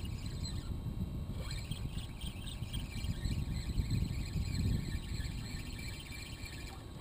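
A spinning reel being cranked, with faint, irregular little squeaks, over a steady low rumble.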